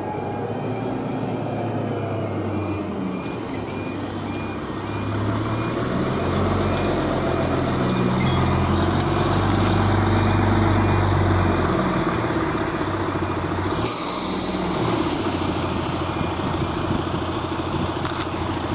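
Level crossing warning alarm pulsing as the barriers come down, over the steady low hum of road vehicle engines waiting at the crossing. A burst of hiss comes about fourteen seconds in.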